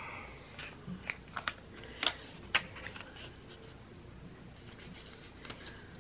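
A paper planner sticker being peeled from its backing sheet and handled, giving a quick run of sharp little clicks and crackles in the first half, then only faint ticks.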